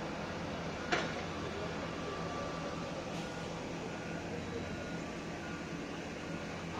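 Steady diesel engine drone of heavy mining machinery, a large haul truck and a hydraulic mining shovel, with one sharp knock about a second in.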